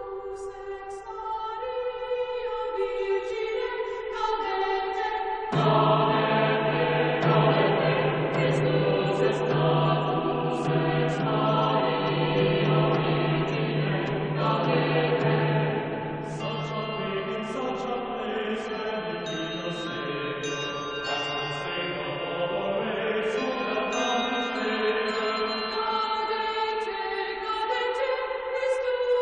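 Background choral music: voices singing a chant. A lower voice part comes in about five seconds in and drops out around sixteen seconds, after which the higher voices carry on.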